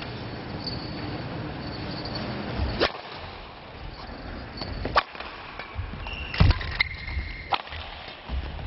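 Table tennis ball hits: a handful of sharp, separate clicks of ball on racket and table, the densest cluster about six to seven and a half seconds in, with a few short high squeaks among them.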